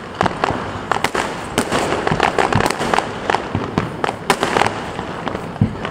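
Fireworks and firecrackers going off all around: a dense run of sharp bangs and cracks at irregular intervals, several a second, over a constant crackling background of more distant ones.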